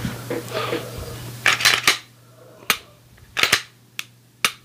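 Glock 17 Gen 5 pistol's action being worked by hand: the slide racked and the trigger dry-fired, giving a series of sharp metallic clicks and clacks, about five in all, after a moment of soft handling noise.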